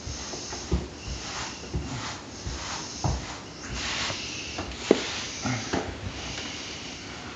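Grout float scraping and smearing premixed grout across wall tile in repeated strokes, with a few short knocks; the sharpest knock comes about five seconds in.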